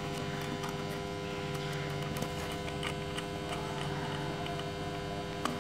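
Steady electrical hum made of several even tones, with a few faint clicks as a screwdriver and a plastic switch board are handled.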